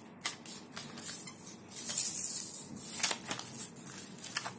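A sheet of paper rustling and crinkling under the hands as it is pressed flat and folded, with a few sharp crackles and a longer, louder rustle about two seconds in.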